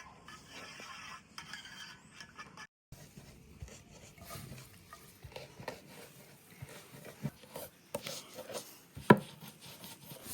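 Scattered light taps and scraping from hand work, with one sharp knock about nine seconds in.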